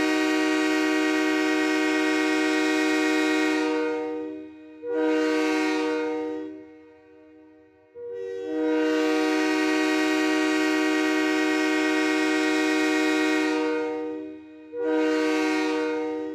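Train air horn sounding several notes at once in a repeating long–short pattern: a long blast that ends about four seconds in, a short blast, a pause of a second or so, then another long blast of about six seconds and a second short blast near the end.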